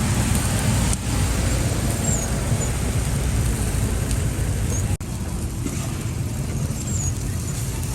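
Steady road traffic noise with a heavy low rumble, broken abruptly about a second in and again near five seconds.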